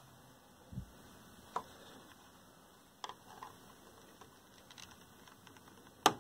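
Scattered small clicks and taps as a thin tool pries the stuck front-panel control knobs off a 1970s Sony Trinitron KV-1942R television. There is a dull thump about a second in and a sharp click near the end.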